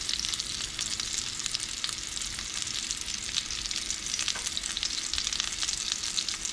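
Hot bacon grease sizzling and crackling steadily in a frying pan as small pinches of raw pork breakfast sausage go into it.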